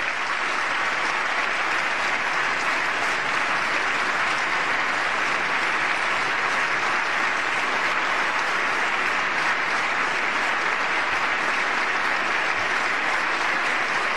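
Large audience applauding steadily, a long unbroken ovation.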